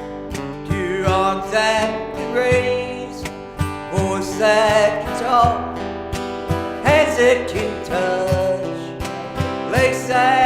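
Country gospel song playing as background music, in an instrumental break between sung verses: a guitar-led band with a gliding lead melody over a steady beat.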